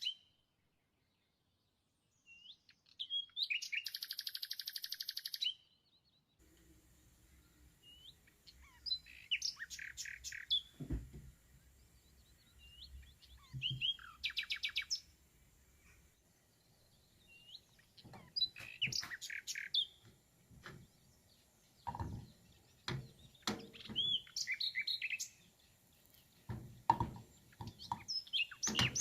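A small songbird chirping and giving quick rapid trills again and again. A few dull low knocks come in from about the middle on.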